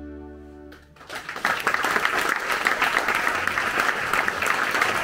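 The ensemble's held final chord fades away, and about a second in an audience breaks into steady applause.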